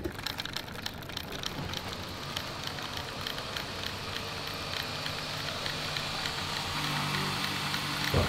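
Home-built solenoid engine driving a small model car, its solenoids clicking in rapid, fairly regular succession as the car creeps along slowly under its own power. A low steady hum joins about seven seconds in.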